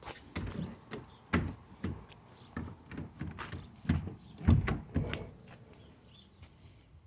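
A string of irregular knocks and thumps, the loudest a cluster about four to five seconds in, then quieter near the end.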